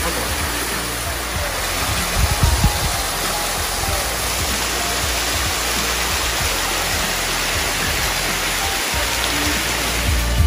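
Small waterfall cascading down a rock face and splashing into a shallow pool: a steady rush of falling water.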